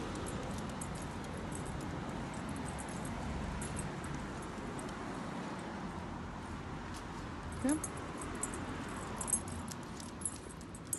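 Light metallic jingling of a dog's collar tags and lead as the dog walks on a lead, over steady outdoor background noise, with one brief rising squeak about three quarters of the way through.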